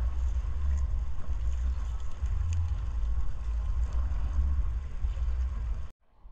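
Low, uneven rumble aboard a small wooden fishing boat while a mesh net with fish is handled and hauled in, with a few faint ticks above it. The sound cuts off abruptly about six seconds in.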